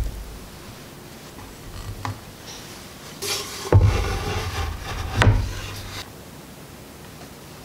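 Hand work on a wooden chopping board: a thud, then a rustling, brushing noise for a few seconds with two solid knocks on the board as flour is scattered over it.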